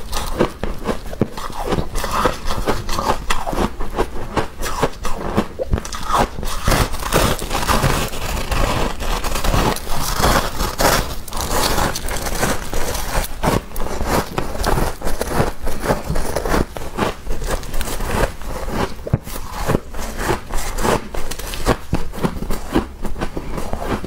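Freezer frost grown with a humidifier being bitten and chewed close to a clip-on microphone. It makes a dense, continuous run of short crisp crunches.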